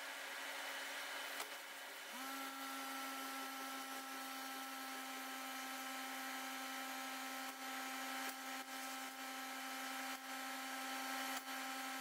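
Laser cutting machine running while it cuts stainless steel sheet: a steady hum, joined about two seconds in by a steady higher whine that holds, with a faint hiss and a few light ticks.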